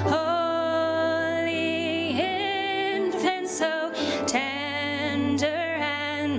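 Two women singing a slow Christmas carol together into microphones with grand piano accompaniment, in long held notes with vibrato. A steady low hum runs underneath.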